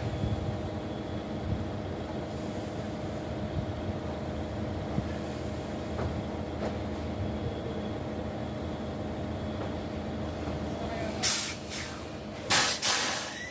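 Heavy vehicle engine idling steadily, then two short, loud bursts of compressed-air hiss near the end.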